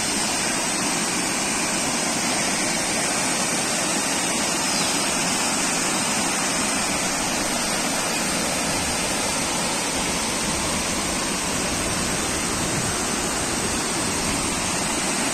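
Mountain river rushing over boulders in small rapids: a steady, even rush of water.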